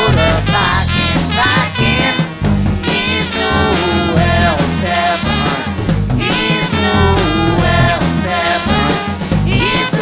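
Swing-style band music led by brass horns over a steady bass line.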